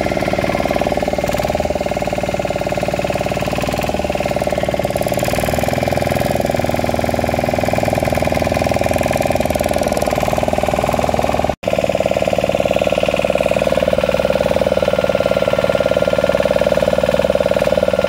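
Engine of a small wooden motorboat running steadily under way, a loud even drone with a fast regular pulse. The sound cuts out for an instant about two-thirds of the way through, then carries on unchanged.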